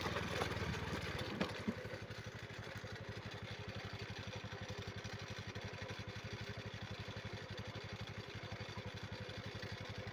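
Small engine running, easing off about a second and a half in, with two short knocks at that moment, then settling into a fast, even putter.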